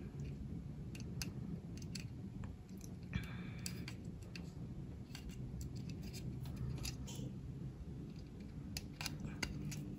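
Small clicks and light scratching of a jumper wire's plastic connector being handled and pushed onto the header pins of an Arduino CNC shield, with a brief scrape a little after three seconds in. A faint steady hum runs underneath.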